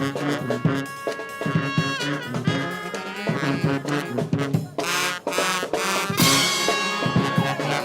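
Street brass band playing: horns such as trumpets and trombones carry a tune in held notes over a steady drum beat.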